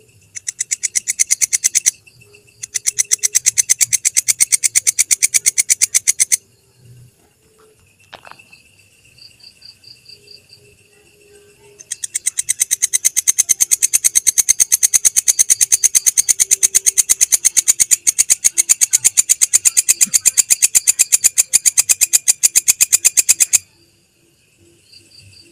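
Belalang kecek insect singing: long trains of rapid, evenly spaced high-pitched clicking pulses, two short bursts and then one long run of about eleven seconds, with a faint steady high tone under the gaps.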